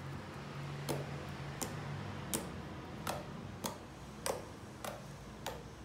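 Homemade slime clicking as a finger presses into it: about eight sharp clicks, roughly one every two-thirds of a second.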